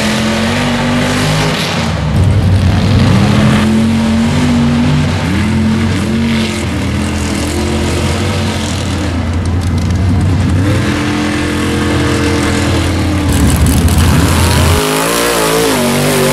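Mega mud truck's engine revving hard under load as it drives through a mud bog pit. The pitch climbs and drops back several times.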